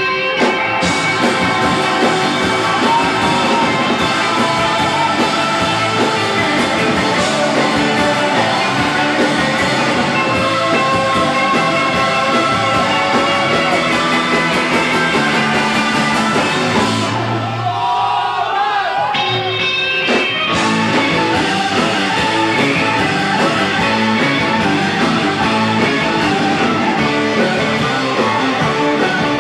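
Live surf rock band playing loud electric guitars and keyboard. About two-thirds of the way through, the band thins out for a few seconds to a single wavering note, then comes back in at full volume.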